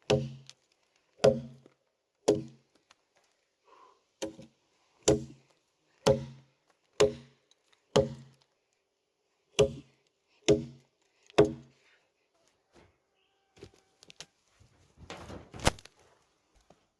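Heavy strikes on wood, about one a second and eleven in all, each ringing briefly. Near the end the blows stop, leaving a softer clatter and one sharp knock.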